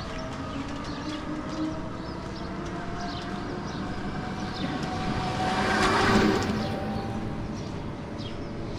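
Three-wheeled auto-rickshaw engine humming as it approaches and passes close by, loudest about six seconds in, then fading. Faint short bird chirps sound throughout.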